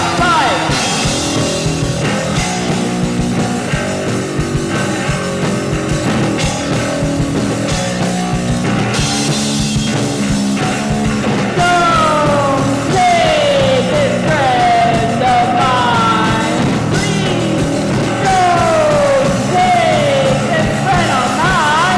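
Rock song with sustained chords held over a steady low end. About halfway through, a high lead part comes in, sliding downward in pitch again and again.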